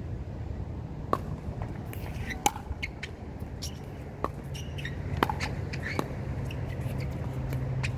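Pickleball rally at the net: about six sharp pops of paddles hitting the plastic ball, irregularly one to two seconds apart, over a low steady hum that grows louder about halfway through.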